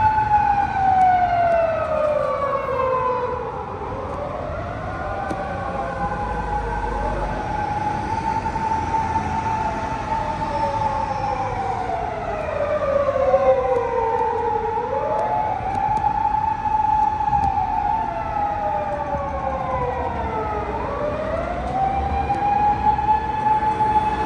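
Police car siren wailing with a slow rise and fall: it holds a high note, sinks over about three seconds, then climbs quickly back up, three times over.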